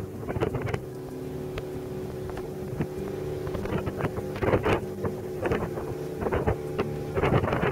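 Motorboat engine running at a steady pitch, with wind now and then buffeting the microphone.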